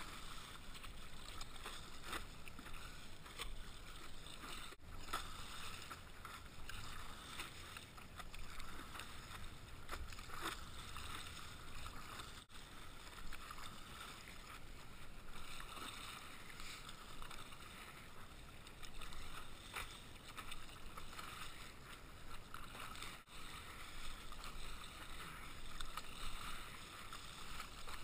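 Water splashing and lapping against a stand-up paddleboard as it glides, with paddle strokes dipping into the water. The sound is fairly quiet and swells and eases every few seconds.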